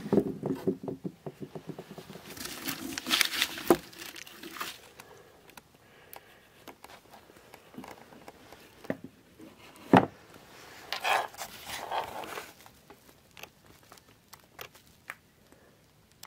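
Handling noise: rustling and crinkling with scattered clicks and knocks as a gloved hand and jacket sleeve move about against a wall. A sharp knock about ten seconds in is the loudest sound.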